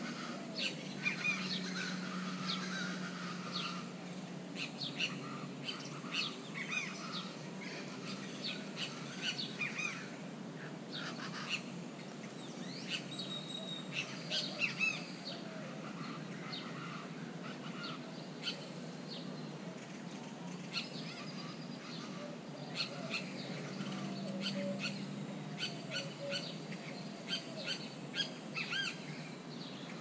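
Grackles calling at a feeding flock: a busy, continuous run of short chips, squeaky notes and brief whistled glides.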